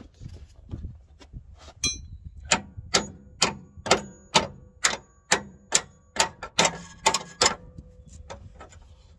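Hammer striking steel on a car's front suspension at the lower control arm: about a dozen sharp metallic blows, roughly two a second, with a faint ring. The blows start about two seconds in and stop about three quarters of the way through.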